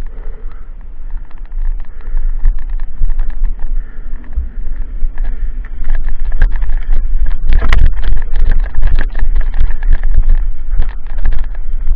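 Mountain bike riding fast down a rough forest singletrack: wind rushing over the camera's microphone and a constant rattle and clatter of the bike over stones and roots. It gets louder about halfway through, with a sharp burst of clatter soon after.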